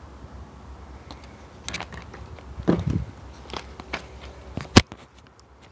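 Handling noise: scattered clicks and knocks over a low steady rumble, with a cluster of knocks a little before the middle and one sharp click near the end, after which the rumble stops.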